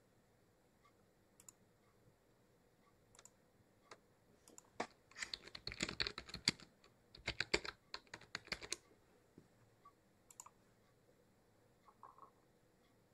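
Typing on a computer keyboard: a flurry of rapid key clicks lasting about four seconds from around five seconds in, with a few scattered single clicks before and after.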